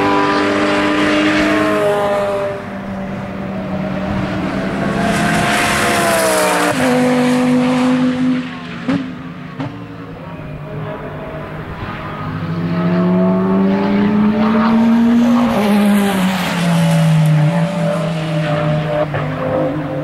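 Straight-piped V10 engine of an Audi R8 LMS Ultra GT3 race car at racing speed, its pitch climbing and dropping in steps with the gear changes. It goes quieter and more distant about a third of the way in, then grows louder again as the car comes back around.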